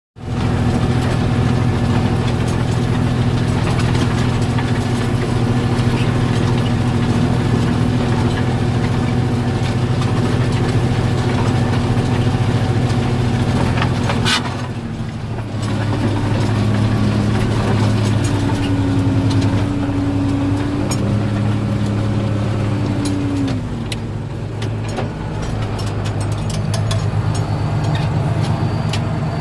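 New Holland 8870 tractor's diesel engine running steadily while pulling a plough. About halfway through, the engine note dips briefly after a sharp click. It then runs at a higher pitch for several seconds before settling back.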